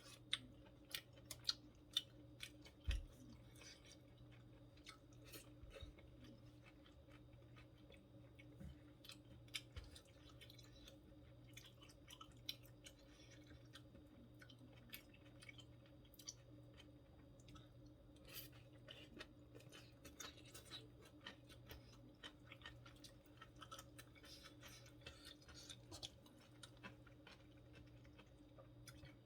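A person chewing food close to the microphone, with many small wet mouth clicks and smacks; a few louder clicks come in the first few seconds. A faint steady hum sits underneath.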